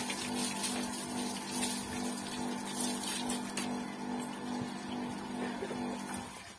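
Electric water pump humming with a slight regular pulse while water rushes from a garden hose; the hum and the water cut off suddenly near the end.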